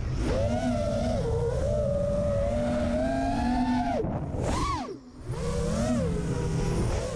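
FPV freestyle quadcopter's brushless motors and propellers whining, the pitch rising and falling with the throttle; the sound cuts out briefly about five seconds in as the throttle is chopped, then picks up again.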